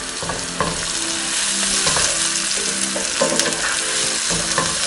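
Sliced onions and ground spices (turmeric, cumin, garam masala, chilli powder) sizzling in a frying pan as they cook out on medium heat. A wooden spatula stirs them, scraping and knocking on the pan at irregular moments.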